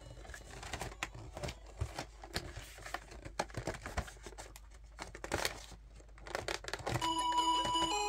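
Crinkling and tearing of a foil Pokémon card booster pack wrapper, with scattered clicks and taps from handling. Background music with held notes comes in about seven seconds in.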